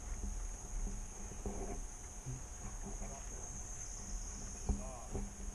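A steady, high-pitched chorus of rainforest insects, one unbroken shrill drone, over a low rumble.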